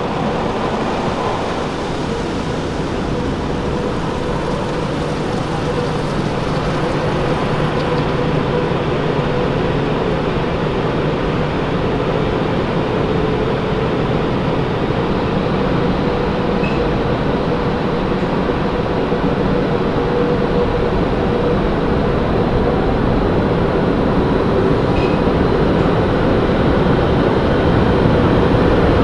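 Automatic tunnel car wash running around the car, heard from inside the cabin: a steady rush of water spray and washing machinery on the body, with a faint hum, slowly growing louder.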